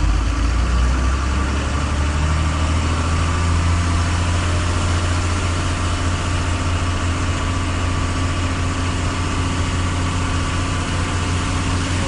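A motor vehicle's engine idling steadily with a deep low rumble.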